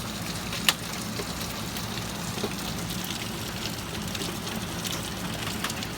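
Steady rain from a sudden summer thunderstorm, with scattered sharp drops and drips hitting close by, one plain tap less than a second in.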